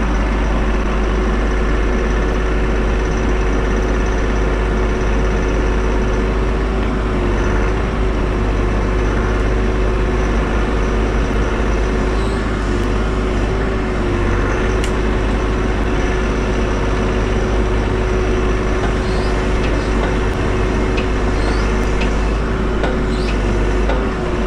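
Bobcat E42 mini excavator's diesel engine running steadily, with a deep rumble and a steady whine over it.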